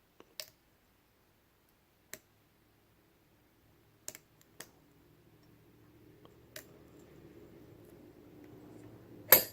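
A few faint, widely spaced clicks from a lock pick working the pin-tumbler cylinder of an ACE A527 round-body padlock, as pins set. Near the end comes one much louder sharp click, the shackle springing open.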